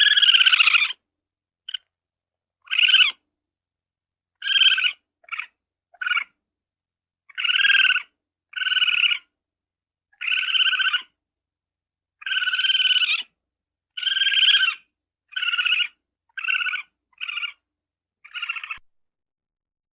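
Ferret whining: about fifteen short, high-pitched squealing calls, each under a second long, separated by gaps of silence.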